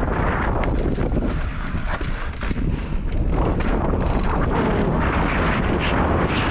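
Wind buffeting the microphone of a mountain bike rider's action camera on a fast dirt-trail descent, mixed with tyre noise and scattered rattles and knocks from the bike over the rough ground. It eases briefly about two seconds in.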